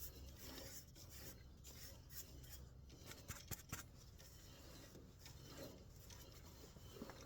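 Faint rubbing as shellac is wiped onto a freshly turned walnut rosette, over a low steady hum, with a few small clicks about halfway through.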